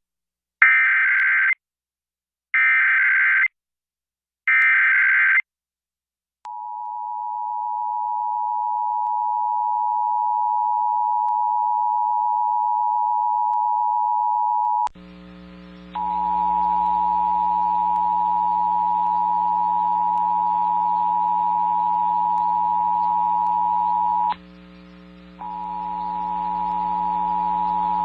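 Emergency Alert System test: three short screeching bursts of SAME digital header data, then the two-tone EAS attention signal (853 and 960 Hz played together) held steady. About halfway through, a low hum comes in under the tone, and the tone drops out for about a second twice.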